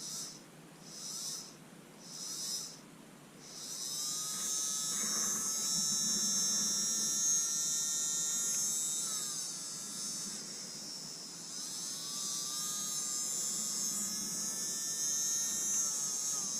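Small DC motor of a Bosch Ixo cordless screwdriver run on bare wires from a battery: four brief bursts, then running continuously with a high whine that dips in pitch twice midway. The motor itself is working fine.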